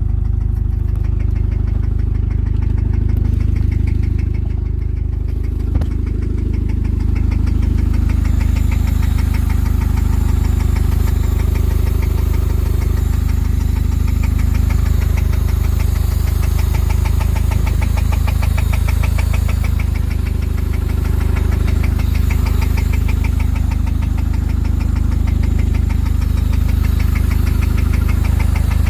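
1999 Honda Civic four-cylinder engine running steadily with a fast, even knocking that gets more distinct after several seconds: rod knock from a worn connecting-rod bearing.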